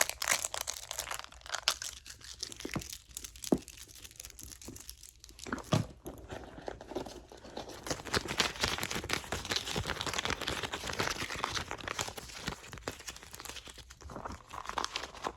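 Close-miked crinkling and rustling with scattered light taps and clicks, from hands handling a leather handbag and the things in it. The crinkling grows denser about halfway through.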